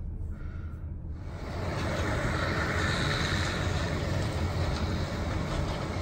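Gleaner combine running steadily as it harvests corn across the field, heard as a constant low rumble mixed with wind rushing on the microphone. It begins about a second in, after a quieter moment.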